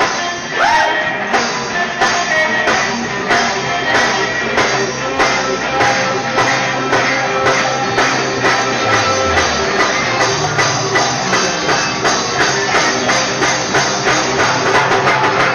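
Live band of drum kit and electric guitars playing an upbeat rock-style worship song with a steady drumbeat and a moving bass line.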